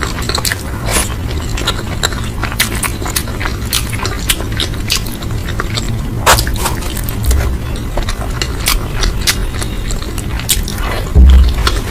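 Close-miked chewing and crunching of food, with many short crackly clicks over a steady low hum, and a low thump about 11 seconds in.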